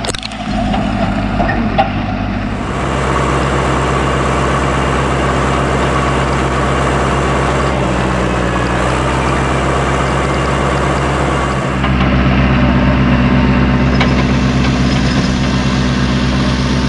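International 584 tractor engine running steadily as it pulls a fertilizer spreader across the field. The sound shifts abruptly a few times as the shots change.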